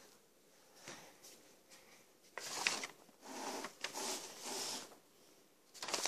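Paper rustling and handling noise in several short bursts, starting about two seconds in, as sheets on a table are moved about.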